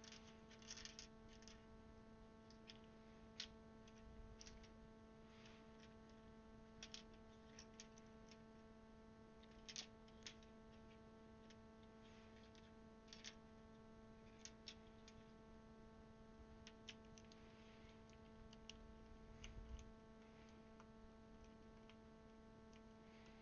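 Faint, irregular plastic clicks of keycaps being pressed one by one onto the Cherry switch stems of a mechanical keyboard, over a steady low electrical hum.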